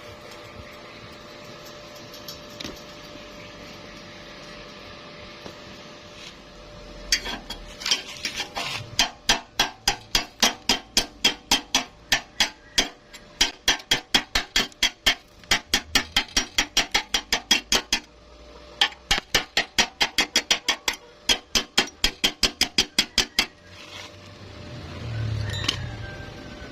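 Hammer rapidly tapping on steel, about four to five sharp metallic strikes a second, in three runs with two brief pauses, over a steady background hum. A low thud comes near the end.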